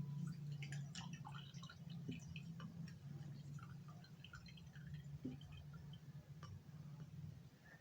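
Lemon half squeezed by hand, its juice dripping into a glass: faint, scattered small drips and clicks.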